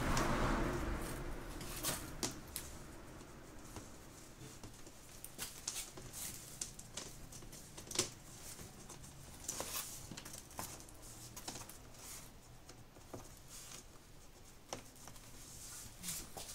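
Scattered light clicks, taps and scrapes of a steel plate being handled and fitted onto the bottom edge of a glass door with gloved hands. There is a denser rustling stretch in the first two seconds and one sharper click about eight seconds in.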